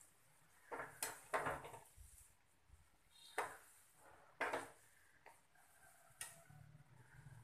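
Metal skimmer clinking and scraping against the side of a metal frying pan as dough balls are turned in hot oil, several separate knocks spread through.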